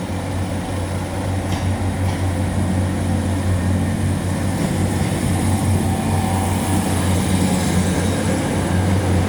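Diesel multiple-unit train pulling away, its engine drone steady and growing gradually louder, with two faint clicks about one and a half and two seconds in.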